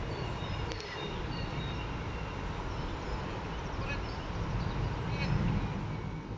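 Wind rumbling on the microphone, with faint, short, high chirps scattered through it.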